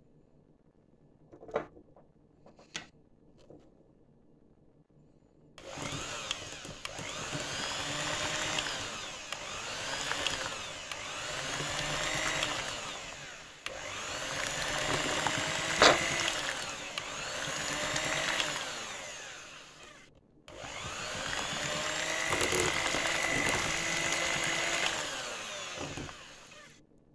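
Electric hand mixer running with its beaters churning sifted flour into a wet cake batter in a china bowl, its pitch swinging up and down as it works through the batter. It starts about five seconds in after a few light taps, cuts out briefly about two-thirds of the way through, runs again, and stops near the end.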